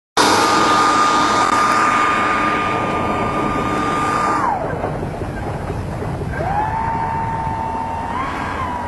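Electric ducted fans of a Skymaster F-15 model jet running with a steady high whine over a rush of air. About four and a half seconds in the throttle comes back and the whine falls away. About two seconds later it spools up again, its pitch stepping up and down with the throttle near the end.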